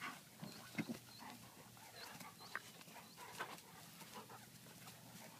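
A German shepherd and a Siberian husky puppy play-fighting, heard faintly as scattered growls, grunts and panting, with a louder grunt just under a second in.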